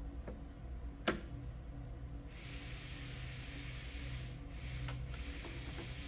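Screwdriver working the mechanism of a 2018 Jeep Wrangler rear door latch assembly to release and unlock it. There is a sharp click about a second in, then a few seconds of scraping with a few faint clicks, over a steady low hum.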